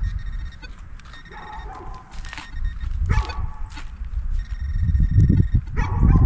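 Digging in hard, root-filled ground, with dull thuds and scraping that grow louder from about halfway in. Several short animal calls sound over it, which the tagger reads as a dog barking.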